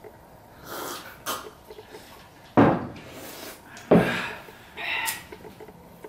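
A few short, sudden breathy sounds from people drinking and starting to eat at a table. The two loudest come about two and a half and four seconds in.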